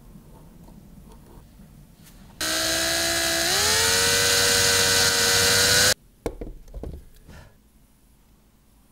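Electric drill boring a small hole into the end of a short wooden dowel piece: a steady whine that rises in pitch about a second in and cuts off sharply after about three and a half seconds. A few light knocks follow.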